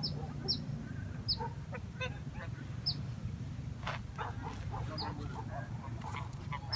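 Geese honking on the lake, scattered calls with short high chirps from a small bird recurring about every second or two, over a low steady rumble.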